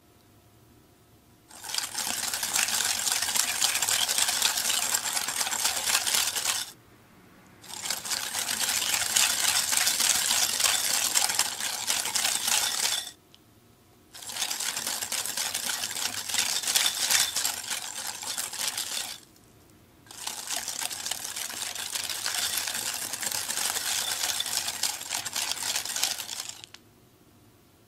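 Stainless wire balloon whisk beating soft butter batter in a glass bowl, the wires clicking and scraping rapidly against the glass. It goes in four bouts of five or six seconds with short pauses between, as beaten egg is added in portions and whisked in to emulsify.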